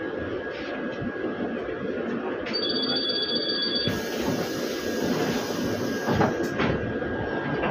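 Trolleybus interior noise, the vehicle waiting in traffic, with a thin steady high whine. About two and a half seconds in, a high two-tone electronic ringing sounds for just over a second, and a couple of short knocks follow near the end.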